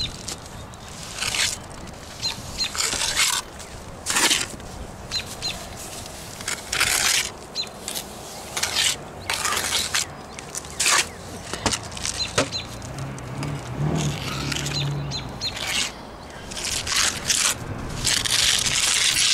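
Steel trowel scraping and spreading wet cement across the brick chimney top around a clay flue tile, in a string of uneven scraping strokes with short pauses between them.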